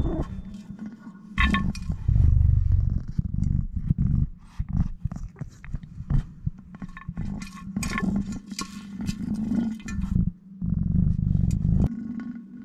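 Kittens pawing at toy mice inside a clear hard toy tube: scrapes, clicks and knocks of paws and toys against the shell, over a low rumble.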